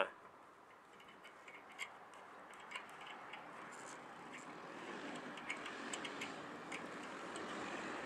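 Faint small metallic clicks as a spectrum analyzer's adapter is clamped by hand onto a microwave dish antenna's feed flange, over a background hiss that slowly grows louder.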